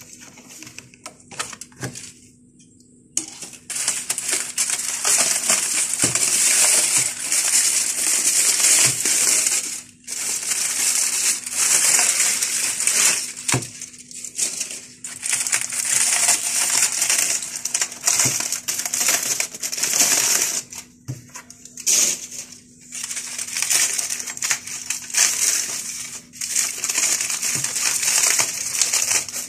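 Aluminium foil being peeled and crumpled off containers: loud crinkling that starts about three seconds in and comes in long stretches with short pauses.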